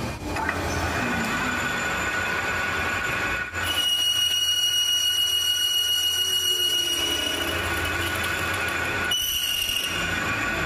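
Metal lathe running with a cutting tool machining the inside of a steel meat-grinder ring. From about three and a half seconds in, a high steady squeal of the tool on the metal sits over the machine noise, fading out and returning briefly near the end.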